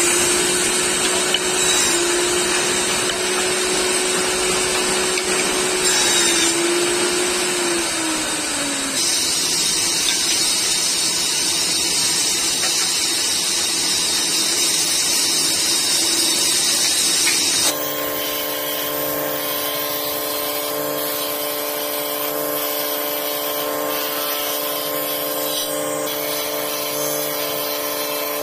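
Electric table saw running with a steady whine that dips in pitch as it rips thin wooden strips, then falls away. A steady high hiss follows, and from about two-thirds of the way in a wood jointer's motor runs with a steady hum.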